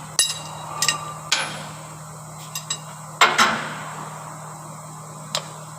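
Metal tools striking metal: about eight irregular sharp clanks and taps, some ringing briefly, the loudest a little over three seconds in. A steady low hum runs beneath.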